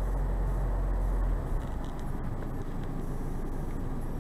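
Steady noise inside a stationary car's cabin, with a deep rumble that eases about a second and a half in.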